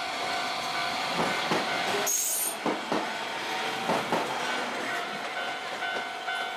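Tokyu 300 series electric tram pulling away and running past at low speed. Its wheels click over rail joints several times over a steady electric hum, with a short high-pitched squeal a little after two seconds in.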